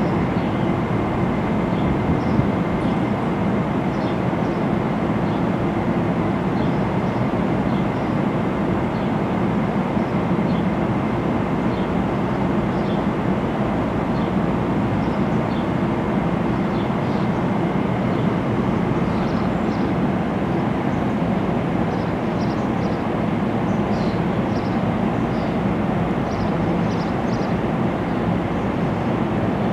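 NJ Transit push-pull train of Multilevel coaches with an ALP-46A electric locomotive, heard as a steady, even drone with a thin high whine and no wheel clatter.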